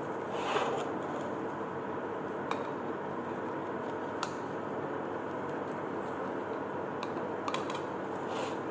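Chef's knife slicing a kimchi pancake on a ceramic plate, the blade clicking sharply against the plate a few times, over a steady background hum.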